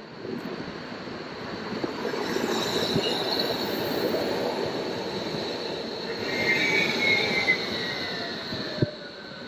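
Electric street tram passing close by on its rails: a steady rolling rumble builds, with high whines that slide slowly down in pitch as it goes by in the second half.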